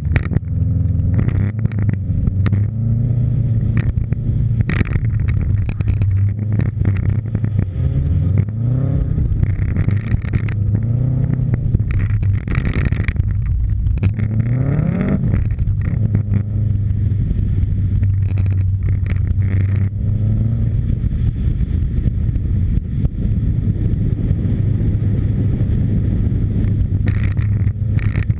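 Subaru Impreza WRX STI rally car's turbocharged flat-four engine working hard through a run on snow, its pitch climbing repeatedly under acceleration and dropping between gears, with a sharp rise about halfway through. Many short clicks and knocks run over the engine sound.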